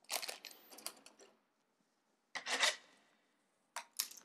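Plastic rubbing and rustling in three short bursts as a plastic model kit runner is handled and slid aside.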